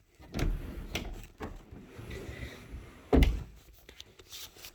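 Closet door being handled: a few knocks and thuds, the loudest a little after three seconds in.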